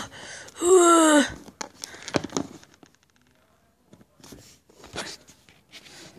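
A short, high vocal cry that falls in pitch, followed by light clicks and taps of plastic toy figures being handled and set down on a cardboard box.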